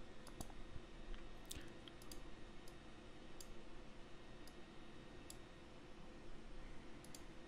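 Faint computer mouse clicks, a dozen or so single clicks at irregular intervals, over a low steady hum.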